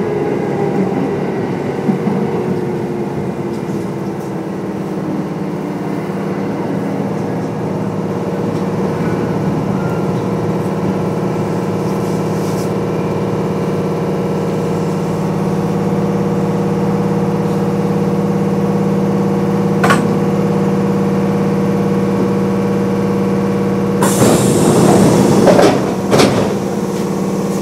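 Kintetsu 8800 series electric train heard from inside the car as it slows into a station: a falling whine from the traction motors and gears, then a steady hum from the car's equipment. Near the end a loud, hissing burst lasts about two seconds.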